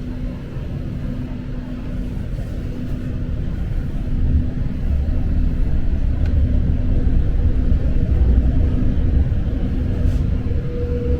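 Passenger train running along the track, heard from inside the car: a steady low rumble of wheels and running gear with a faint steady hum. The rumble grows louder about four seconds in.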